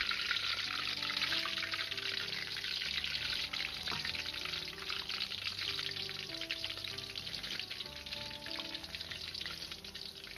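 Battered shredded radish clumps deep-frying in a wok of oil, a dense crackling sizzle that gradually softens. Soft background music with sustained notes underneath.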